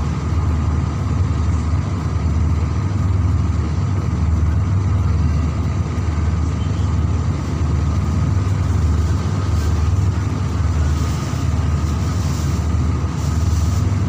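Steady low rumble with a faint steady hum above it.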